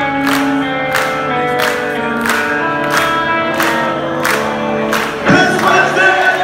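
Rock band playing live in a hall, heard from within the audience: sustained electric guitar and keyboard tones over a cymbal struck about every two-thirds of a second. About five seconds in the music swells and voices come in singing.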